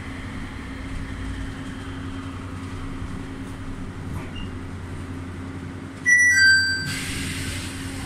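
Nippori-Toneri Liner car running slowly with a steady low hum, then about six seconds in a loud two-note descending door chime, followed by a short rush of noise as the doors slide open.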